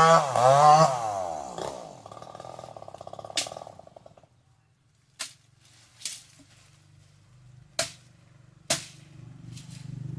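Two-stroke chainsaw engine coming off full throttle, its pitch falling as it winds down to a fainter steady buzz that stops about four seconds in. Several sharp clicks follow, and a low hum swells near the end.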